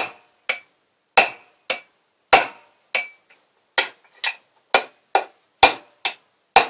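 A hammer strikes an aluminium drift held against the rear cover of a Ural motorcycle engine block, about a dozen sharp metallic knocks at roughly two a second, each with a short ring. The blows are meant to break the tight, factory-fitted cover free of the heated crankcase.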